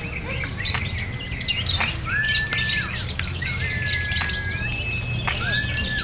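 Lovebirds singing: a dense run of rapid chirps and clicks broken by several long, level whistled notes of about half a second to a second each, over a steady low hum.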